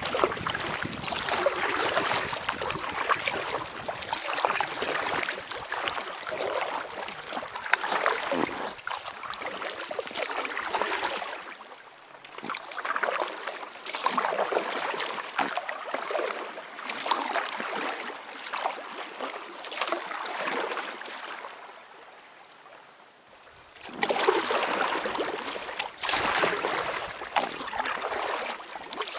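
Kayak paddle strokes splashing and dripping in calm water, about one stroke a second. The strokes stop for a couple of seconds near the end, then start again.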